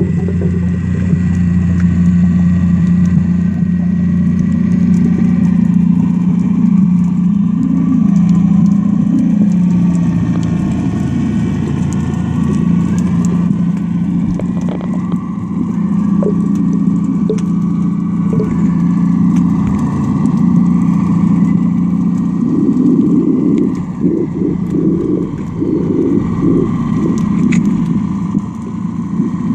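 A boat's engine and propeller heard underwater: a steady low drone with an even hum, turning rougher and more uneven near the end.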